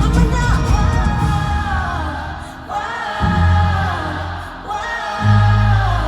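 Live pop concert music: a female lead vocal sung over a band with heavy bass, in a large venue.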